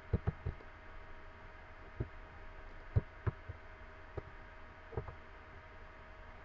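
About ten dull, irregular taps of a computer keyboard and mouse being clicked, over a steady faint hum.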